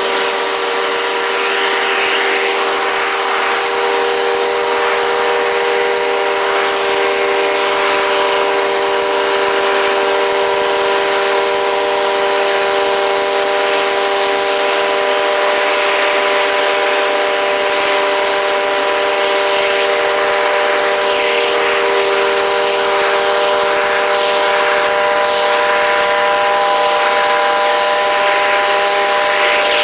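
Eureka PowerSpeed upright vacuum cleaner running steadily, a motor hum with a high whine over a rush of airflow.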